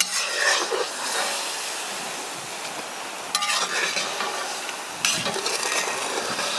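A slotted steel ladle stirring in a kazan of boiling water with celery leaves blanching in it, over a steady hiss of the boiling water. The ladle knocks against the pot at the start, about three seconds in and again about five seconds in.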